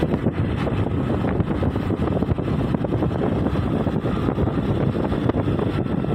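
Wind buffeting the microphone while riding a motorcycle along a road, a loud steady rumble of wind and road noise with the bike running underneath.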